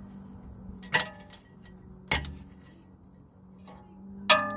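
Three sharp metallic clicks as a tool works the ABS sensor cable's retaining clip free of its bracket on the car's rear hub. The last click is the loudest and rings on briefly. A faint steady hum sits underneath.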